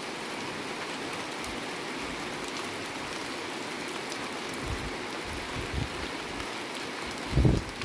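Steady rain falling and pattering on surfaces, a continuous hiss with fine drop ticks. A few brief low thumps come in the second half, the loudest about seven and a half seconds in.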